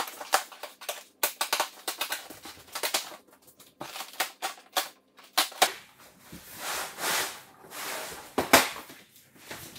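Cardboard shipping box being opened: packing tape cut and torn and the flaps pulled apart. A run of irregular crackles, rips and scrapes, with longer tearing sounds about four and seven seconds in and a sharp crack near the end.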